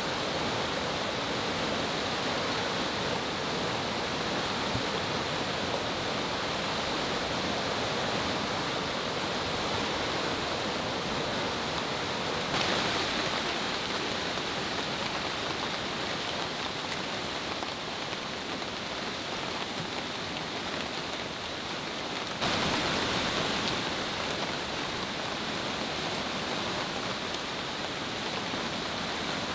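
Steady rushing of a swollen, fast-flowing river mixed with falling rain. It steps up slightly louder about twelve seconds in and again about twenty-two seconds in.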